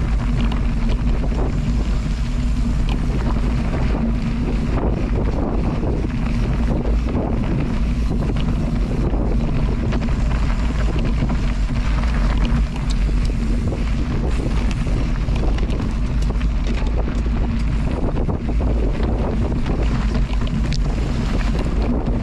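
Loud, steady rushing noise with wind buffeting the microphone over a continuous low rumble.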